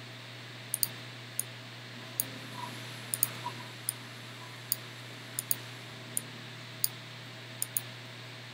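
Computer mouse button clicking about fifteen times at uneven intervals, some clicks in quick pairs, as clone-stamp dabs are applied. A steady low hum runs underneath.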